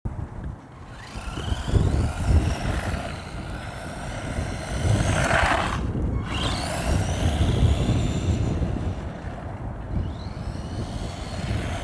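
A 1/18-scale four-wheel-drive RC truck driving, its small electric motor whining up in pitch as it accelerates three times, over the rough rumble of its tyres on the ground.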